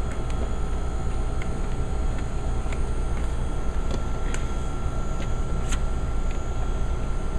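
Steady machine hum with a low rumble and a faint constant whine, with several light clicks and knocks as sticky dough is scraped down from the sides of a steel mixer bowl by hand.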